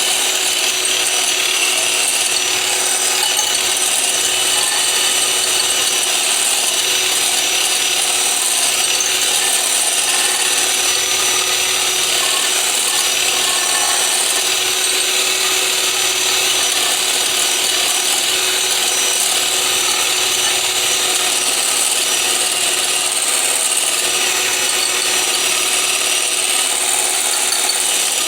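Electric blender running steadily at an even speed, whipping egg, vinegar and oil into a thick mayonnaise, with a constant whine over the noise of the mixture.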